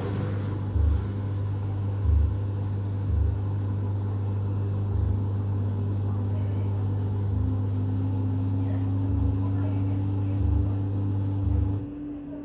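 LG washing machine starting up and running: a steady low motor hum with dull knocks about every second or two as the drum turns, and a whine slowly rising from about halfway through as it speeds up. The hum stops shortly before the end.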